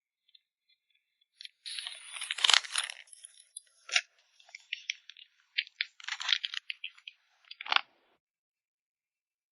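Plastic photocard sleeves and packaging crinkling and rustling as they are handled during photocard packing, with small sharp taps and clicks in between. The sounds come in irregular bursts, starting about a second and a half in and stopping about a second before the end.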